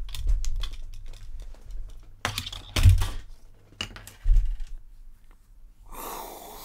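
Paper fast-food bag and wrappers rustling and crinkling in hand, with scattered small clicks and two louder knocks, the louder about three seconds in.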